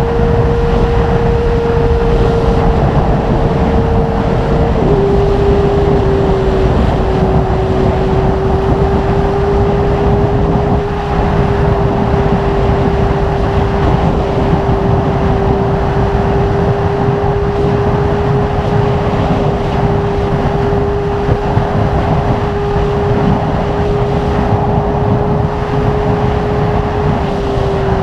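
Kawasaki ZX25R's 250 cc inline-four engine through a Magna aftermarket exhaust, running at high, steady revs while riding. Its pitch drops suddenly about five seconds in, then holds level and eases lower near the end.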